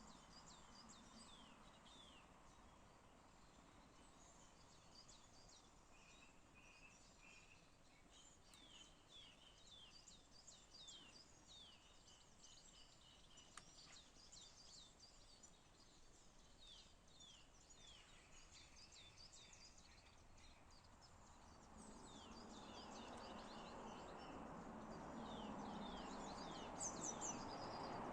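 Small birds chirping, a steady run of short falling notes, over faint background noise. About three-quarters of the way through a low rushing noise swells up beneath the chirps.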